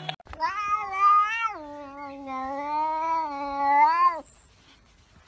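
A domestic cat giving one long, wavering yowl lasting about four seconds, its pitch dropping a step a little over a second in.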